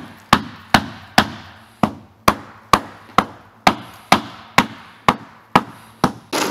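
Rubber mallet striking the aluminium hull of an upturned boat about twice a second to knock off caked ice, each blow ringing briefly in the metal.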